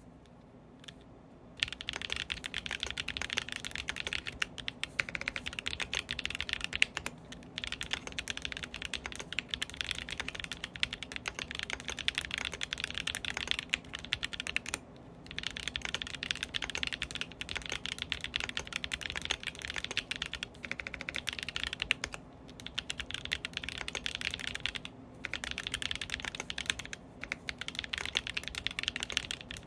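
Fast, continuous typing on a Foxlab Sandglass Ergo mechanical keyboard with lubed Blu4T switches. It starts about a second and a half in and breaks off for short pauses now and then.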